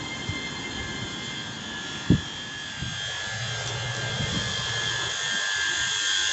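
ScotRail Class 385 electric multiple unit pulling away from the platform, its traction equipment giving a steady whine of several high tones that grows a little stronger as it draws away. A single sharp thump about two seconds in.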